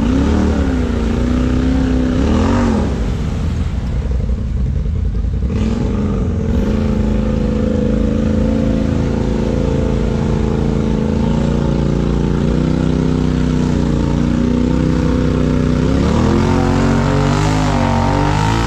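Lifted Polaris side-by-side's engine revving as it churns through a deep mud hole on tall mud tyres: the revs swing up and down at first, hold steady through the middle, then rise and fall in several quick pulls near the end.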